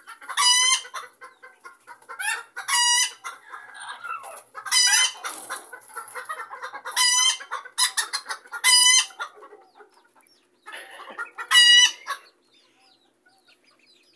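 Bantam chickens clucking, with one bird giving a loud, high call about every two seconds, six times. The calls stop about twelve seconds in.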